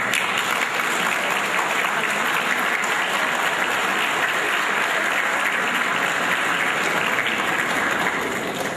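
A large crowd of legislators applauding: steady, dense clapping that eases off near the end.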